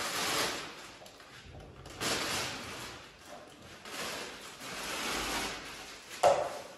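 Plastic wrapping rustling and crinkling in several swells as the chair's power supply is pulled out and unwrapped, with one short knock near the end.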